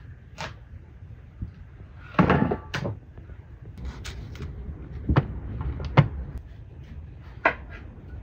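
Kitchen knives cutting on wooden chopping boards: irregular sharp knocks as blades strike the boards, with one louder clatter about two seconds in.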